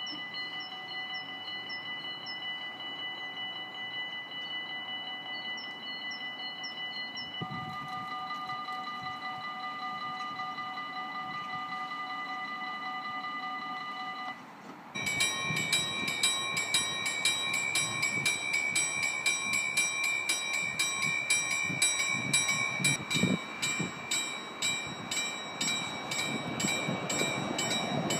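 Level-crossing warning signals sounding as barriers come down. First comes a steady electronic chime tone that changes pitch partway through. After a sudden switch, a louder bell strikes rapidly and evenly, about three times a second.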